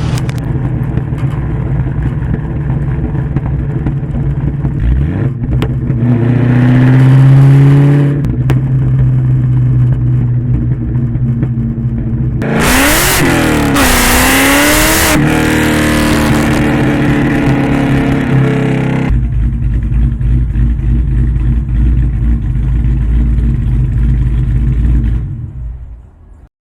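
Supercharged 4.6-litre DOHC V8 of a cammed, Whipple-supercharged Terminator SVT Cobra with Kooks headers and a Borla ATAK exhaust, heard from inside the car. It runs steadily and rises in pitch in a rev about five seconds in. Around the middle it revs sharply up and down with a loud rush, then settles into a deep low rumble before cutting off near the end.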